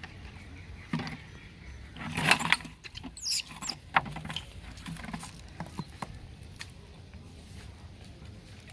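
Monkeys moving and squealing: a brief loud rustling burst about two seconds in, then a short high squeal that falls in pitch, and a few sharp clicks and taps.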